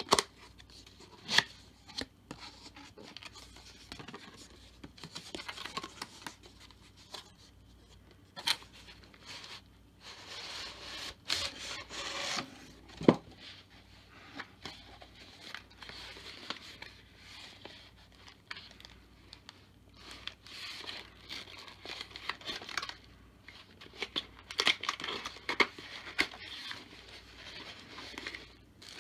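Cardboard packaging opened and handled by hand: box flaps and a cardboard insert rubbing and sliding, with scattered taps and a few sharp clicks.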